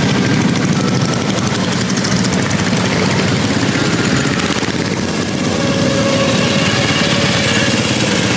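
A vehicle engine running steadily close by, a dense low rumble with no break.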